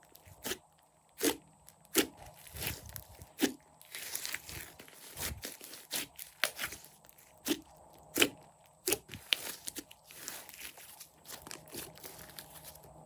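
Slime being squished, stretched and mixed by hand, making irregular sharp pops and crackles.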